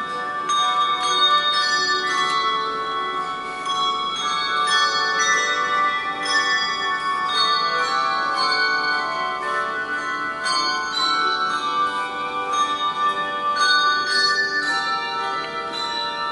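A handbell choir playing: many handbells struck in quick succession, their notes ringing on and overlapping into chords.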